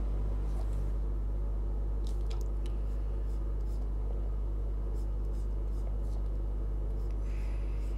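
Steady low hum with a few faint, short clicks over it.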